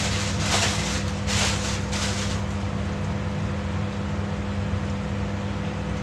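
Steady low electrical hum from a running household appliance, with three short bursts of plastic-bag rustling in the first couple of seconds.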